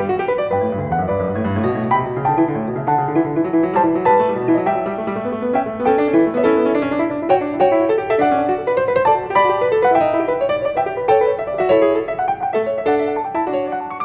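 Piano music: a steady flow of melody notes over chords.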